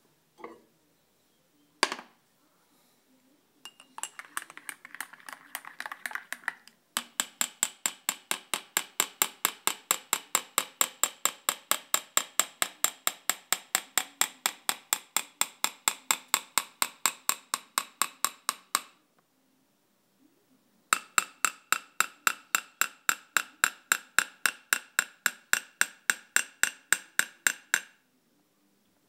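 A spoon tapping on a glass of drink with powder stirred into it, about four taps a second in two long runs. The ringing note climbs slowly as the taps go on. This is the hot chocolate effect: bubbles from the dissolving powder lower the glass's pitch until they clear.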